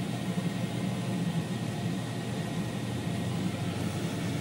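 Steady running noise of a 50-watt CO2 laser cutter's ancillary machinery (exhaust fan, air assist and chiller): an even hum with a hiss over it.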